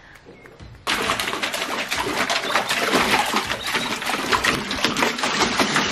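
A dog splashing about in shallow water in a small plastic kids' sandpit used as a pool: busy, irregular sloshing and slapping of water that starts about a second in and keeps going.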